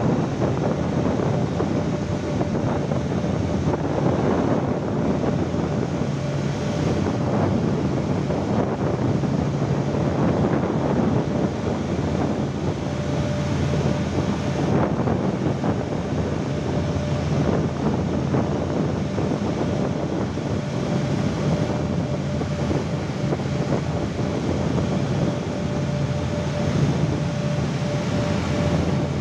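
A boat's engine running with a steady low hum, under wind buffeting the microphone and the rush of water past the hull.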